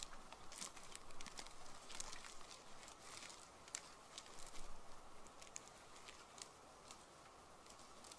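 Footsteps crunching through dry bracken and leaf litter at a walking pace, getting fainter as the walker moves away.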